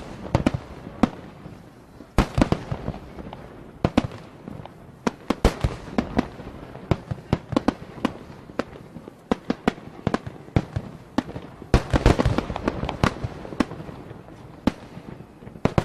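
Fireworks going off: a long series of sharp bangs and cracks at irregular intervals, with denser runs of crackling about two and a half seconds in and again around twelve seconds.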